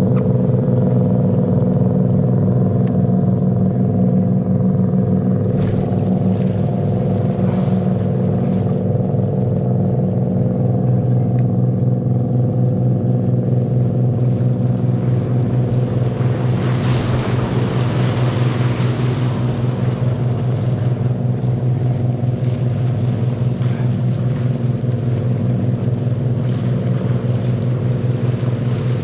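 An engine running at a steady speed. A rushing noise swells about 16 seconds in and fades a few seconds later.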